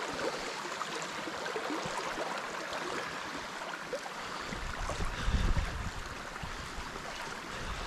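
Shallow creek water running fast over riffles, a steady rushing. A low rumble joins it about halfway through, loudest about five seconds in.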